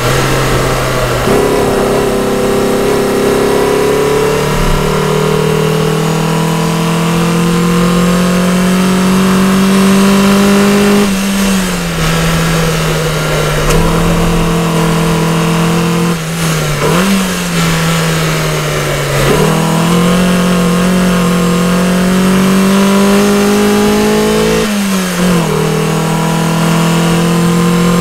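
Mercedes 190E 2.3-16V's 2.3-litre four-cylinder engine pulling under throttle, heard inside the cabin. Its revs climb slowly and break off sharply about four times at lifts and gear changes.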